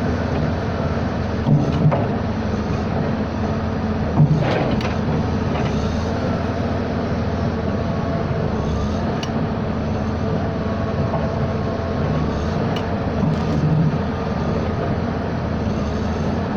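Steady low rumble of a running vehicle, with a few brief knocks in the first few seconds.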